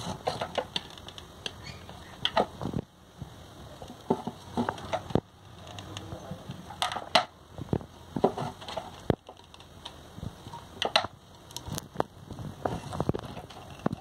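Handling noise from crafting: irregular light clicks, taps and rustles as hands press a ribbon onto a rope-wrapped glass jug.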